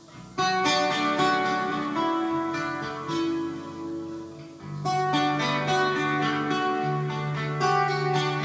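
Recorded music with plucked acoustic guitar, played back on a Panasonic cassette deck. The guitar comes in sharply about half a second in.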